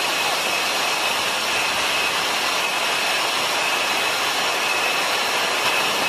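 Steady rushing of a waterfall and its cascading stream, an even hiss that holds level throughout, with a faint high steady tone above it.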